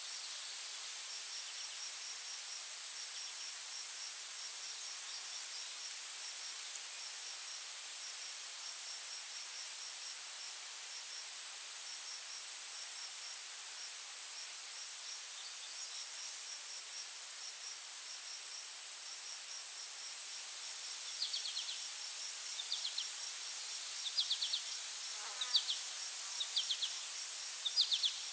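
Insect chorus: a steady high drone with rapid pulsed cricket-like chirping throughout. In the last several seconds, groups of short, quick chirps join in.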